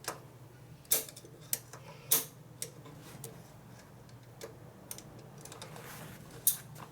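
Small metal parts and hand tools clicking and clinking as they are handled, in irregular single ticks, the loudest about a second in, two seconds in and near the end.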